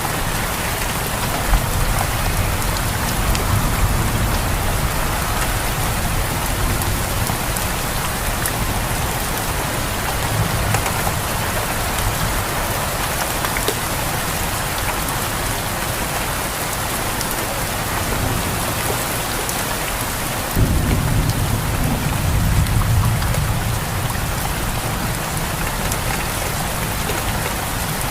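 Steady heavy rain pouring down, with thunder rumbling low underneath. About two-thirds of the way in, a louder peal of thunder starts suddenly and rolls on for a few seconds.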